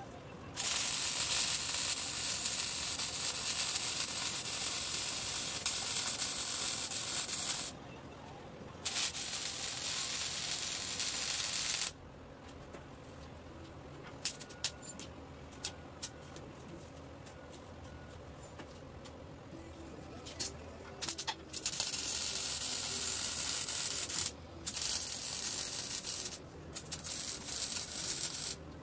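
MIG welder arc crackling and hissing as steel frame tubing is welded, in two long beads over the first twelve seconds. After a pause of about ten seconds with a few clicks and knocks, three short tack-like bursts of the same crackle come near the end.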